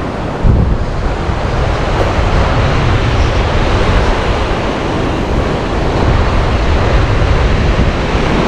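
Sea surf washing on a sandy beach, mixed with wind rumbling on the camera microphone. It is a steady, unbroken rush that gets louder about half a second in.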